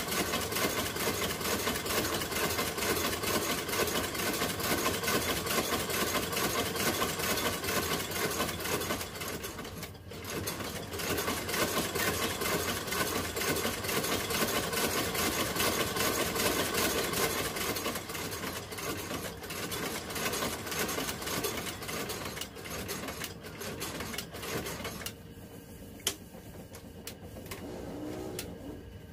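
Industrial outsole stitching machine sewing a new leather sole onto a shoe, running with a rapid, even clatter of stitches. It dips briefly about ten seconds in, and near the end it slows and goes quieter, with a single sharp click.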